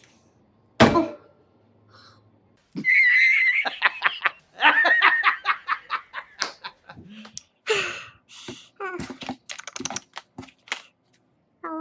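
A single sharp knock about a second in, then high-pitched laughter in rapid bursts, several pulses a second, breaking into shorter giggles toward the end.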